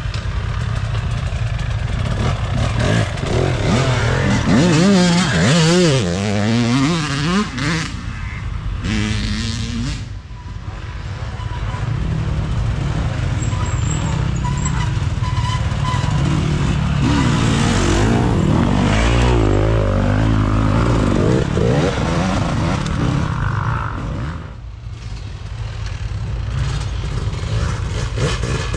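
Off-road dirt bike engines revving up and down as bikes ride past, with two louder stretches of rising and falling revs, one a few seconds in and one in the middle.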